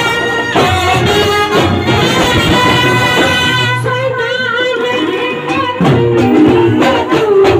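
Indian street brass band playing a melody on clarinets and a trumpet, with rhythmic strokes growing sharper near the end.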